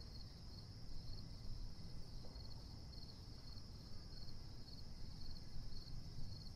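Crickets chirping in a steady high trill, pulsing about twice a second, over a faint low rumble.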